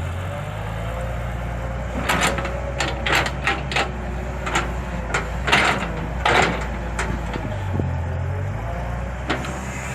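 An engine running steadily, with a series of sharp knocks and clanks from about two to seven seconds in and one more near the end.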